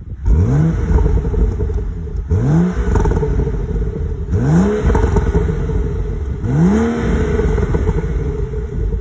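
BMW F30 335i's turbocharged straight-six exhaust revved four times from idle, each rev a quick rise and fall in pitch about two seconds apart. There are light pops and crackles from the exhaust as the revs drop, the pops the car makes in Sport Plus mode.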